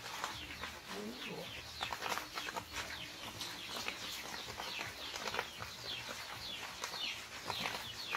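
High-pitched chirping calls: many short notes falling in pitch, several a second, with a few lower gliding cries about a second in.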